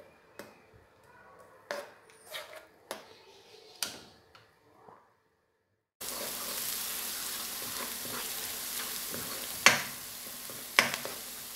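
Chopped onion being stirred in hot oil in a karahi with a wooden spoon. At first there are only scattered light taps and scrapes on the pan. After a brief gap about six seconds in, a steady sizzle of the onions frying takes over, with two sharp spoon knocks near the end.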